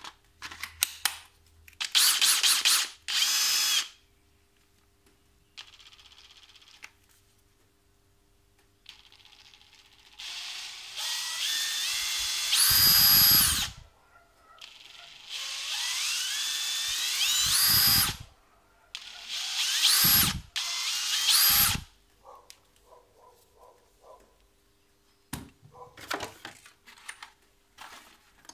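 Bosch GSR 18V-60 C cordless drill/driver's brushless motor run in about six short bursts. The whine climbs in pitch as the trigger is squeezed further and stops sharply when it is released. Near the end come light plastic clicks and rattles.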